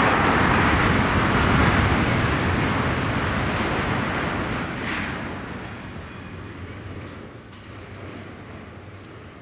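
Rumbling crash of a steel-arched dome frame collapsing after its demolition charges fire, a dense noise that fades steadily over several seconds.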